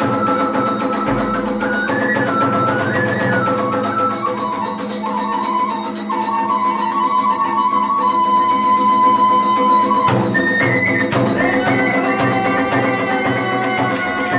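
Iwami kagura hayashi music: a Japanese bamboo transverse flute (fue) plays a sliding, wavering melody over a steady lower accompaniment. The flute holds one long note in the middle, then jumps higher about ten seconds in.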